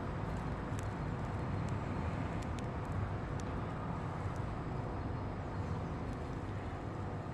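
Steady low outdoor rumble, with scattered faint clicks over it.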